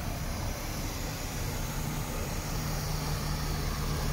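MAN TGX 41.540 truck's inline-six diesel engine idling, a steady low hum under an even hiss, with a steady low tone coming in about halfway through.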